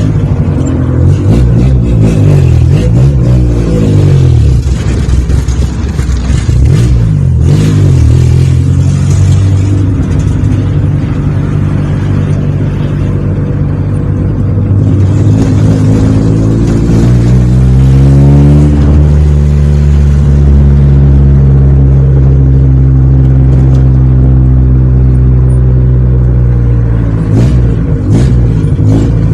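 Exhaust of a naturally aspirated VW Gol's AP four-cylinder with a 3E carburettor and a 4-into-1 header, running through only a pipe with no muffler. It revs up and drops back several times in the first half, then climbs once and holds a steady high note for several seconds, easing off near the end.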